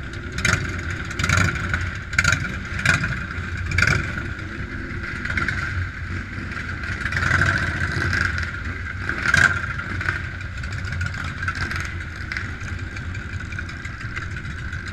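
Motorcycle engines idling together in a group, a steady low rumble. Short sharp bursts break in several times in the first four seconds and once more about nine seconds in.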